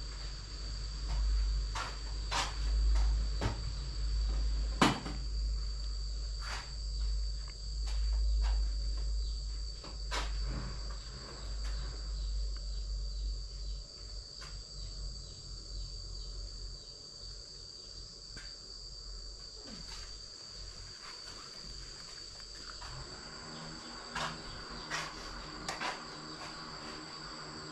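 A steady high-pitched insect trill, with scattered light clicks and knocks and a low rumble that fades out about halfway.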